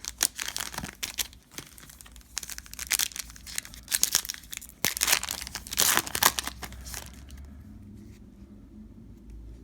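Foil trading-card pack being torn open and its wrapper crinkled, a run of crackling rustles that dies down about seven seconds in, leaving a low hum.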